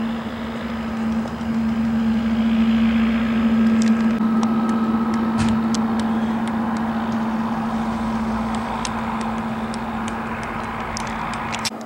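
Steady engine noise with a constant droning hum, joined by scattered sharp clicks in the second half, cutting off abruptly near the end.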